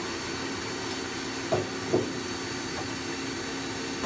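Mazak M5N CNC lathe running with a steady mechanical hum. Two short knocks come about a second and a half and two seconds in.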